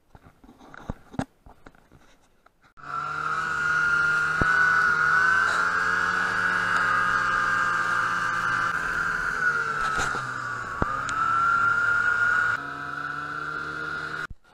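Snowmobile engine running steadily at travelling speed with a high whine, its pitch dipping and rising again about ten seconds in. It cuts in abruptly about three seconds in, after a few faint clicks, and stops abruptly at the very end.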